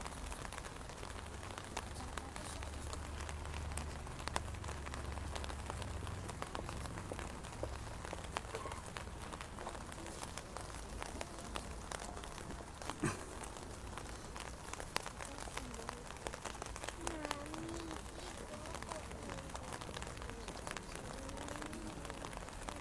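Steady rain falling on umbrellas and wet pavement: an even hiss dotted with many small, sharp drop ticks. Faint murmured voices come in during the second half.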